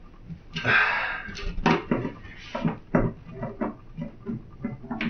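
Hand screwdriver tightening the screws of a metal wall bracket: a short scrape a little under a second in, then a series of irregular clicks and knocks of tool against screw and bracket.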